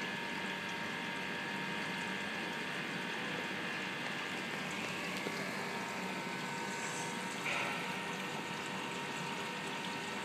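Reflux classifier test rig running: a steady hum of the pumped water flow through the gravity-separation column, an even rush with a few faint steady tones through it.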